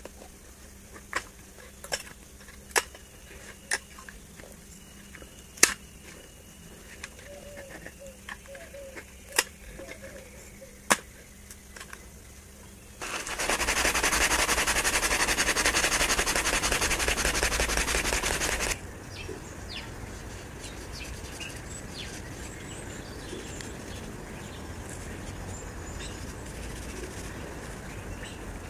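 Irregular sharp clicks as a utility knife trims the wooden hatchet handle. About halfway through, a cloth is rubbed hard over the steel hatchet head for about six seconds, giving a loud, even scrubbing noise. A softer, steady outdoor hiss follows.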